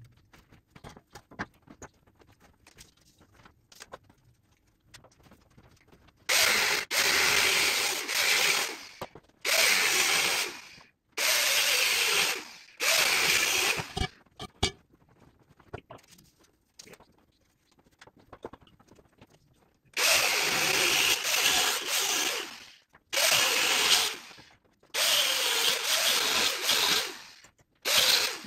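Angle grinder cutting 2 7/8-inch metal pipe in seven loud bursts of one to three seconds each, in two runs beginning about six and twenty seconds in, with a shrill, high cutting sound whose pitch wavers under load.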